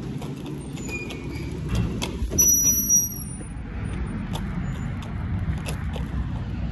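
Steady low rumble of road traffic and vehicles at a highway truck stop, with scattered clicks and knocks and a short high squeak about two and a half seconds in.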